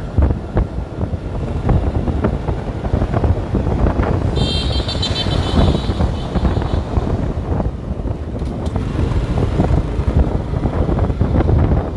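Wind buffeting the microphone over the rumble of a vehicle moving along a street. A faint high-pitched tone sounds for a couple of seconds near the middle.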